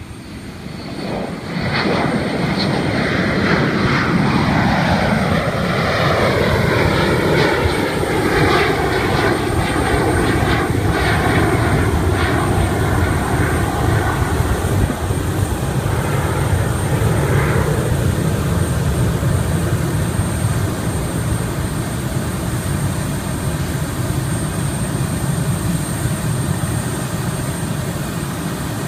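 Boeing 727-200F freighter's three JT8D turbofan jet engines at takeoff power as it climbs out. The roar swells sharply about a second and a half in, with sweeping tones falling in pitch as the jet passes, then settles into a steady rumble that eases slightly near the end.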